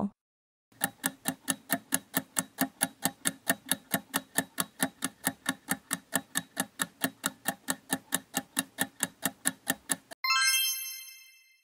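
Quiz countdown-timer sound effect: steady ticking, about four ticks a second, then about ten seconds in a bright chime that rings out and fades, marking the end of the countdown.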